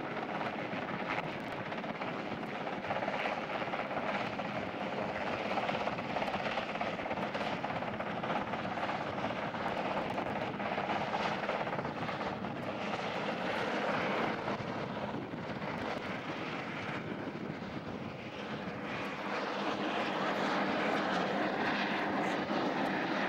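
Navy SH-3 Sea King helicopter flying close by, its rotor and twin turbine engines making a steady noise. The noise eases slightly about three-quarters of the way through, then grows louder again near the end.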